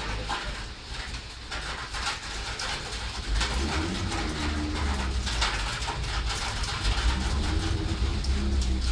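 Thunderstorm wind and rain through an open window: a steady low rumble under a hiss of rain. About three and a half seconds in, low hooting tones that bend in pitch join in and keep repeating.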